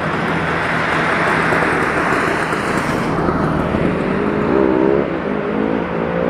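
Steady rushing noise with a low engine hum underneath. From about four seconds in, a motor vehicle's engine note rises and wavers in pitch.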